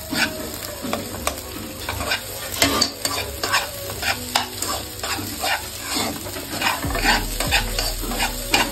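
A wooden spatula stirring and scraping flattened rice (poha) around a non-stick karai in quick, irregular strokes, over a light sizzle of ghee in the pan.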